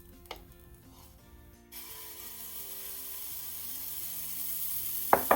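Crêpe batter sizzling on a hot griddle: a steady hiss that starts suddenly about two seconds in and slowly grows louder, with one sharp knock near the end.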